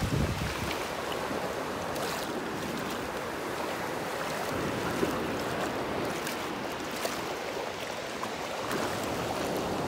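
Ocean surf: waves breaking and washing ashore as a steady rushing noise.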